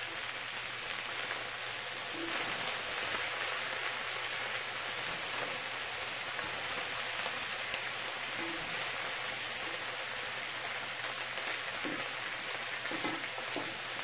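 Chopped cabbage and chicken sizzling steadily in hot oil in a deep skillet as they are tossed with a wooden spoon.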